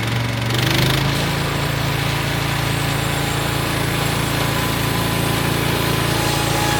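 Engine of a portable bandsaw sawmill running steadily, with a broad hiss that comes up about a second in and holds.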